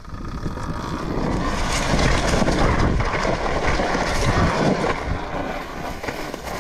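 Talaria Sting electric dirt bike ridden fast over rough, dry grassy ground: wind rushing over the microphone and the tyres and chassis rattling over the bumps. It grows louder over the first second or two as the bike picks up speed, then holds steady.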